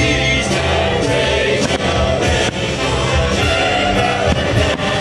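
Choir singing carols with instrumental accompaniment, with a few firework bangs faintly mixed in.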